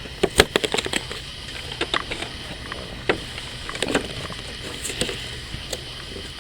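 Packaging of a boxed figure being handled and opened: irregular clicks, taps and light scraping, with a cluster of sharp clicks in the first second.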